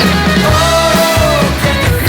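Loud rock music with guitar, playing steadily without a break.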